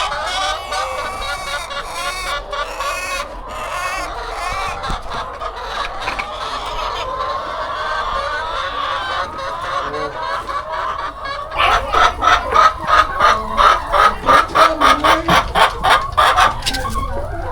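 Many hens clucking together. About two-thirds of the way in, one loud, rapid run of clucks at roughly four a second starts and lasts about five seconds.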